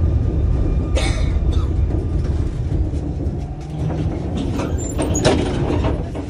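Tram interior: the car's low running rumble as it slows to a stop, with a few clanks and a brief high squeal about three-quarters of the way through, the rumble dying away near the end.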